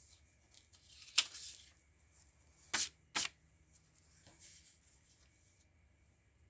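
A sheet of drawing paper rustling and sliding as it is handled on a hardboard drawing board, loudest about a second in. Two sharp clicks follow a moment apart, then a softer scrape.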